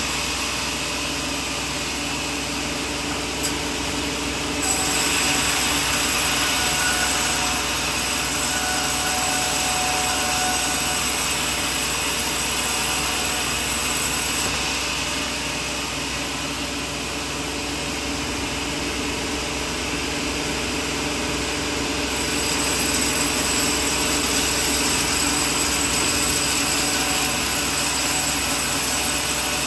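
Sawmill running, with a steady hiss and whine. It grows louder about four and a half seconds in, eases back about halfway through, and rises again near the end.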